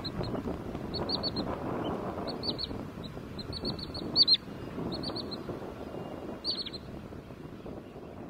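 Wood sandpiper calling: short, high, down-slurred notes in quick runs of three or four, repeated again and again, one louder run about four seconds in. A steady low rumble of background noise lies underneath.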